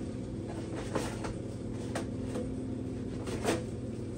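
Black disposable gloves being peeled off the hands: a few short, light snaps and rustles over a steady low hum.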